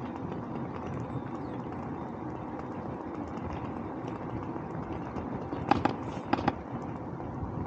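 Steady rumble of wind and tyre noise from a bicycle rolling along a road. About two-thirds of the way through, a brief cluster of short, sharp, high-pitched sounds stands out as the loudest thing.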